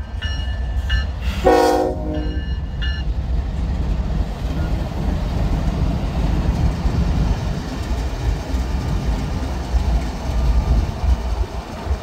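Freight diesel locomotives running light sound a short horn blast just over a second in, a chord of several tones with a brief echo. After it come the steady low rumble of the diesel engines and the wheels on the rails as the locomotives pass close by.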